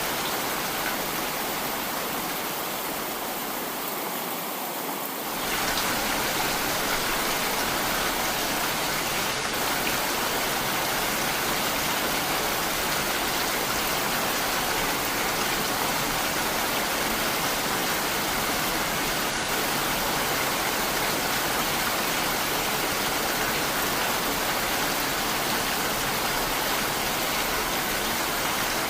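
Heavy rain falling steadily, a dense even hiss. About five seconds in it turns a little louder and fuller.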